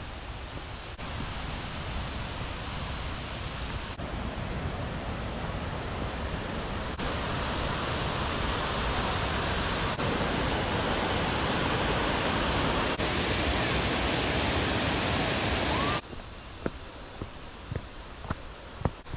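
Steady rush of a waterfall, stepping louder every few seconds in abrupt cuts. It drops suddenly to a quieter hiss with a few sharp clicks near the end.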